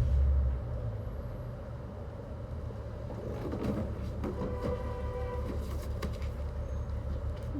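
Wind buffeting the microphone: a steady low rumble with a strong gust in the first half-second. About halfway through, a brief pitched sound with several tones rises above it.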